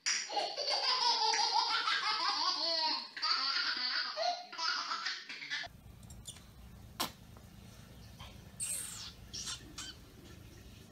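A baby laughing, a run of loud, repeated laughs lasting about five and a half seconds that cuts off suddenly, leaving a faint low steady sound with a few light clicks.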